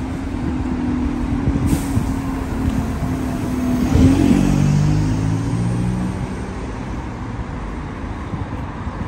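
A motor vehicle drives past close by in street traffic. Its engine note is loudest about four seconds in and drops in pitch as it goes by.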